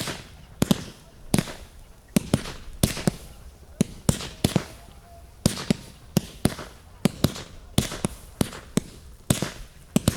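Fireworks display going off: a dense, irregular string of sharp bangs, about two or three a second.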